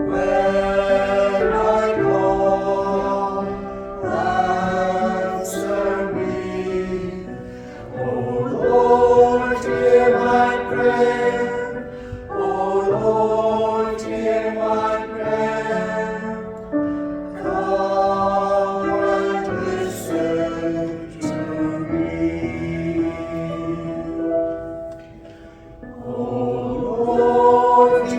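A church choir singing a hymn in sustained phrases a few seconds long, with brief pauses between them.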